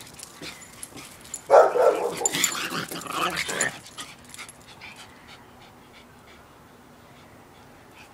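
Two small dogs play-fighting, with two loud bursts of dog noise in the first four seconds, then quieter.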